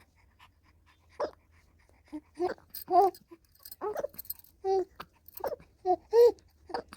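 A three-month-old baby boy making a string of short squealing and cooing sounds, about ten of them, starting about a second in.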